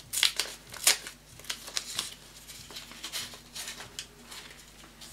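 Small packaging rustling and crinkling in the hands as a wrapped item is unwrapped: a run of quick, irregular crackles, densest in the first second and thinning out after that.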